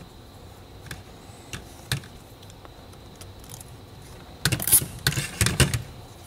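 A few faint clicks and rustles from handling a fabric parking brake boot, then about four and a half seconds in a quick run of sharp ratcheting clicks: a nylon zip tie being pulled tight around the boot.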